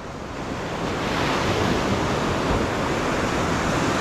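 Sea surf washing, with wind buffeting the microphone: a steady hiss that builds over the first second and then holds.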